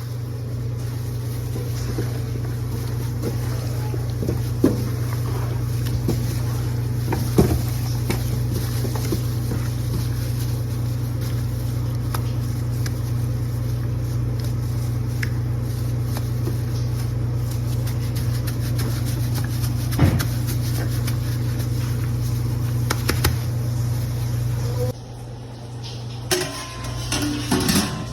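Steady low machine hum with a few faint clicks, cutting off suddenly about 25 seconds in, followed by a few knocks and clatter.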